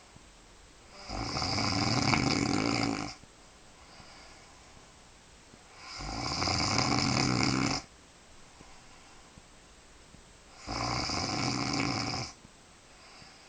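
A woman snoring loudly in her sleep. There are three long snores, each about two seconds, coming every four to five seconds, with quiet stretches between.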